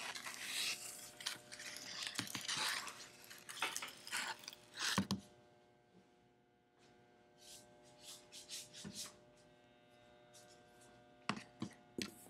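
Rustling and scraping handling noises with a sharp knock about five seconds in and a couple of clicks near the end, over a steady room hum.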